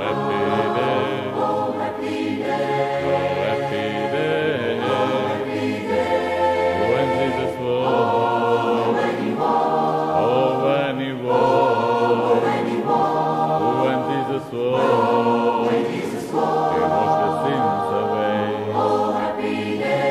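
Background music: an a cappella choir singing sustained, layered chords without instruments.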